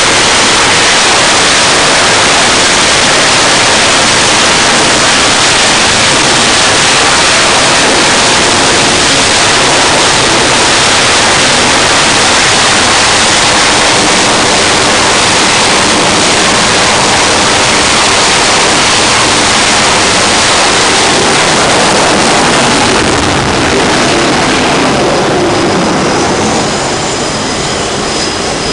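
F/A-18 fighter jet engines running on a carrier flight deck: a loud, steady jet roar. Near the end the roar eases a little and a high turbine whine comes through.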